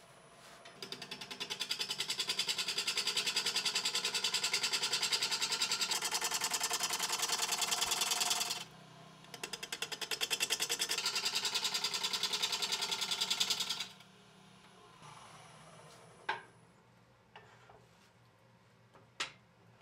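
Turning gouge cutting a spinning sycamore blank on a wood lathe, giving a fast, even rattle. It comes in two runs of about eight and five seconds with a short break between. Later come two light knocks.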